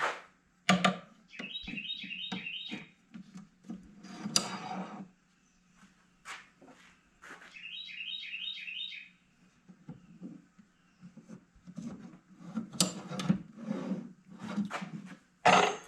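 Metal drawer slides and a plastic jig being handled and clicked into place: a string of sharp clicks, knocks and clatter. Between them a bird gives a quick run of about five chirps, twice, over a faint steady low hum.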